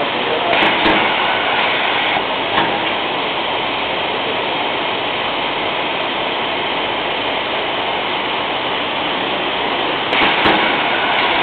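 Paper stacking machine running: a steady mechanical hiss of conveyor belts, rollers and sliding paper sheets, with a few sharp clicks about a second in and again near the end.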